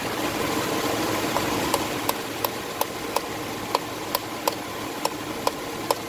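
Subaru Tribeca flat-six engine idling under the open hood, with a sharp light click repeating about three times a second, starting a little over a second in.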